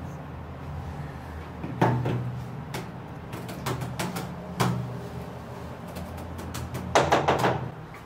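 Scattered clicks of fingers typing on a laptop keyboard over a steady low hum, then a quick run of knocks on a wooden door near the end.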